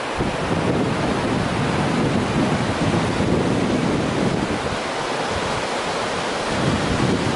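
Shallow rocky river rushing over rapids, a steady dense roar of white water, with wind buffeting the microphone.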